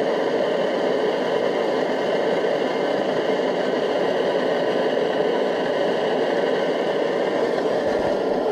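Liquid-fuel backpacking stove, fed by a pressurized red fuel bottle, burning steadily under a pot with an even, unbroken hiss.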